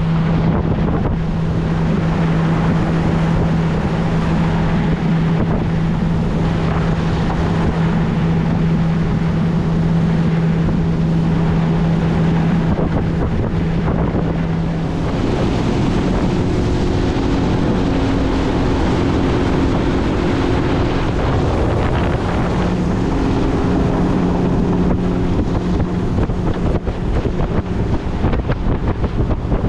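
Fishing boat running along the river under outboard power, its engine note steady, with wind buffeting the microphone and water rushing past the hull. About halfway through, the engine's steady hum changes to a different, slightly higher note.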